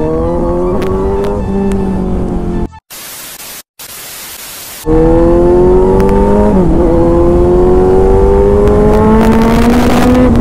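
Kawasaki Z900 inline-four engine and exhaust pulling hard under acceleration, its pitch climbing steadily, with a short drop at a gear change about six and a half seconds in. Around three to five seconds in, the engine sound breaks off for about two seconds into a quieter hiss.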